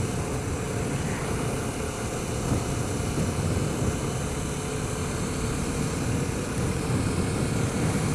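Kawasaki Ninja 650R's parallel-twin engine running at a steady speed under wind noise on the microphone while riding.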